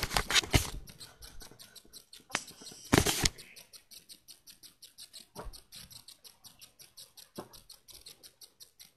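Close rustling and bumping of the camera being handled, loudest in the first second and again around three seconds in, over a faint, fast, even ticking of about six ticks a second.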